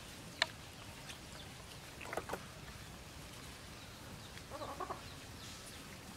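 Chickens clucking in the background: a couple of short clucks about two seconds in and a quick run of them near the end, with a single sharp click near the start.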